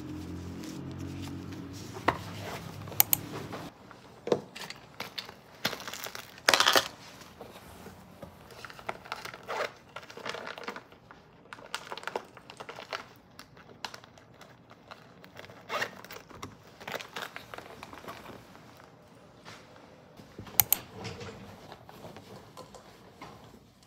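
Plastic crinkling and rustling as hands rummage through a small blue woven-plastic IKEA bag keyring, with scattered sharp clicks and crackles.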